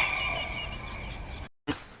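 Bird calls: a held high whistle with a few short chirps over it, fading out, then cut off abruptly by a moment of silence.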